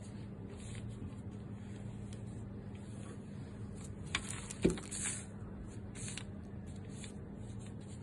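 Calligraphy brush stroking across paper: soft, intermittent swishes over a steady room hum, with two short knocks a little past the middle, the second the louder.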